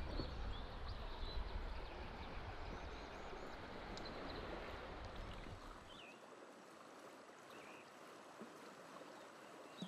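Faint steady rush of flowing river water, with a low rumble under it that fades out about six seconds in. A few faint bird chirps come in the second half.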